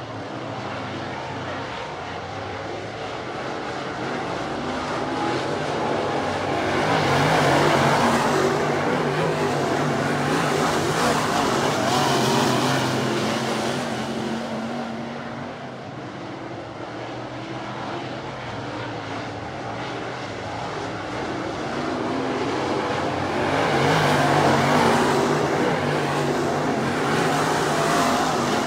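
Dirt track race cars' V8 engines running laps. The sound swells louder twice, about a quarter of the way in and again near the end, as the cars come past.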